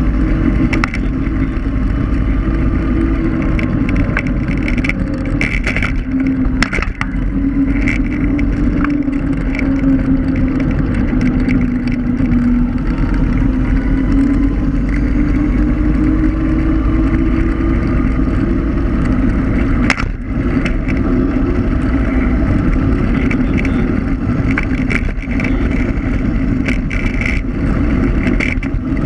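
Electric scooter riding along a paved lane: a steady motor hum that drifts slightly up and down in pitch with speed, over a constant low rumble. There are a few sharp knocks from bumps, one near seven seconds in and one about twenty seconds in.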